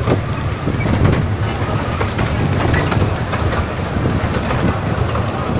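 Miniature railway train running along its track, heard from on board: a steady rumble with scattered clicks and clatter from the wheels on the rails.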